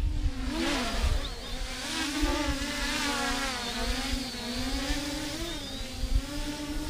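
MJX Bugs 8 quadcopter's motors and propellers whining in flight, the pitch wavering up and down as the throttle shifts, with wind buffeting the microphone.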